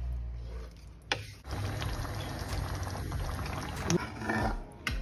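Thick curry sauce being stirred and scooped in a nonstick frying pan: wet, sloshing sounds with a few sharp clicks.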